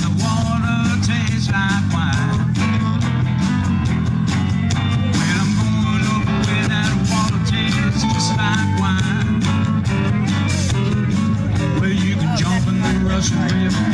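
Live rock band playing: electric guitar with bending lead lines over bass and drums keeping a steady beat.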